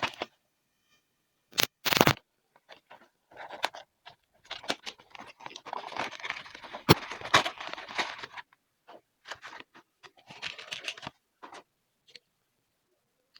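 Packaging being handled and opened by hand: irregular bursts of crinkling, scratching and tearing. There are two loud short bursts about two seconds in, a longer busy stretch in the middle with one sharp click, and a few small ticks near the end.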